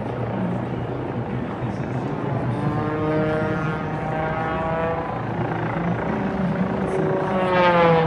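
Race plane's six-cylinder Lycoming engine and propeller buzzing as it flies low and fast. Near the end it passes close by and its pitch drops sharply as it goes past. A steady low drone runs underneath.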